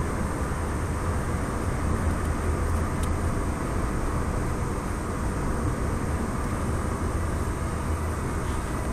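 Steady hum of a car in motion, heard from inside the cabin: engine and road noise at an even level.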